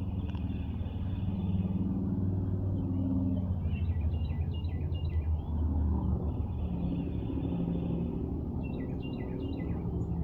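Steady low rumble of distant road traffic, with birds chirping in two short flurries, one in the middle and one near the end, and a high steady trilling buzz that comes and goes.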